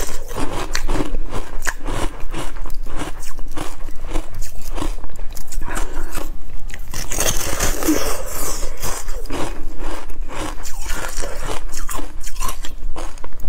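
Close-up crunching and chewing of a frozen white-chocolate-coated ice cream bar: the hard coating cracks under repeated bites in a dense run of sharp crackles.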